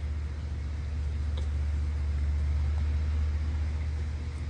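A steady low rumble with no change in level, with a faint tick about a second and a half in.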